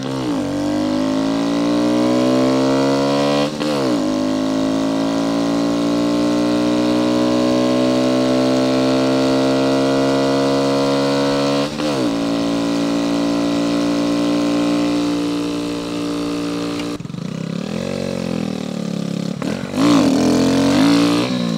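Kawasaki Z125 Pro's 125cc single-cylinder engine accelerating hard through the gears, pitch climbing in long, slow pulls with upshifts about three and a half and twelve seconds in. Near the end the pitch falls and the engine goes quieter as the throttle closes, then it revs up again briefly.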